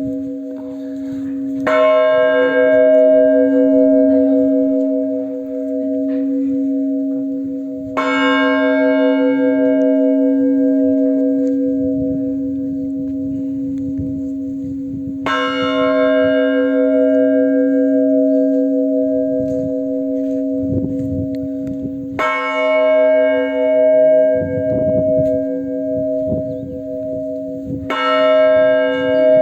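Blagovest on a large Russian Orthodox church bell: one bell struck five times at a slow, even pace, about every six to seven seconds. Each stroke rings on in a long, steady hum that fills the gap to the next. This measured single-bell ringing announces the all-night vigil.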